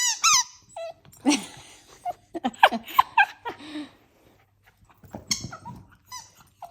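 A small dog whining several times, in short pitched calls that bend up and down, with squeaks from a squeaky dog toy among them.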